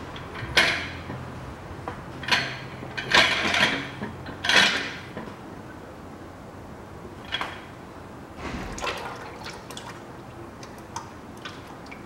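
Lower oil pan of a Nissan Qashqai's 2.0 petrol engine being broken free of its sealant and pulled down: several loud clattering, scraping bursts of metal in the first five seconds, with the remaining oil dripping and splashing into a basin. A few lighter knocks follow as the pan is handled.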